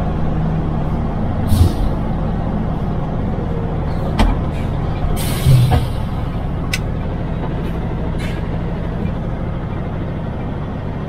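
MAN TGX truck's diesel engine running steadily, heard from inside the cab while driving. A few sharp clicks and a couple of brief hisses cut in over it, the longest hiss about five seconds in.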